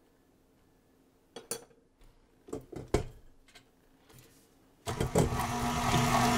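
KitchenAid tilt-head stand mixer: a few short knocks and clicks as the head is lowered into place, then the motor switches on about five seconds in and runs steadily with a constant hum, the flat beater creaming butter and peanut butter in the steel bowl.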